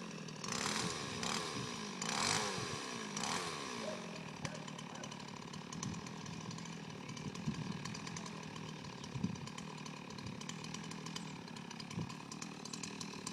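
Two-stroke chainsaw revved in three short bursts over the first few seconds, its pitch dropping after each one, then running at a steady idle.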